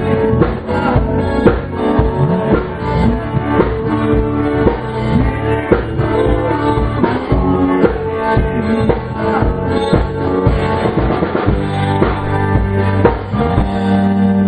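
Rock band jamming live: guitars with a drum kit keeping a steady beat.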